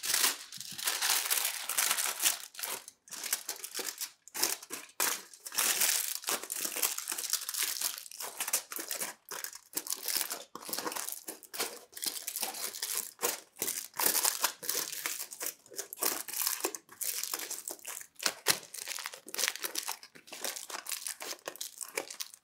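Aluminium foil crinkling and crumpling in irregular crackly bursts as it is pressed, folded and wrapped by hand into a small cup.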